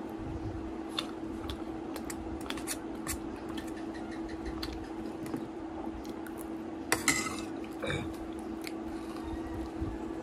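Metal spoon clinking and scraping against a stainless steel pot as food is eaten, in scattered light clicks with a louder clatter about seven seconds in and another near eight seconds. A steady low hum runs underneath.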